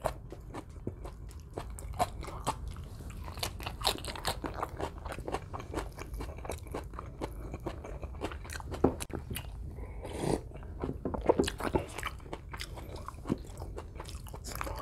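Close-miked chewing of a rice meal of bopis and beef steak eaten by hand: a steady run of wet mouth clicks, smacks and crunches.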